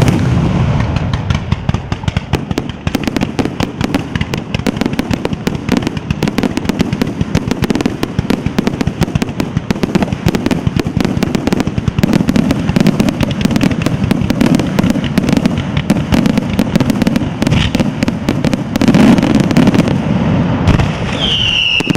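Daytime sanseverese-style fireworks battery firing: a dense, rapid, continuous run of aerial bangs and crackling bursts, with a loud bang at the start and the firing thinning briefly near the end.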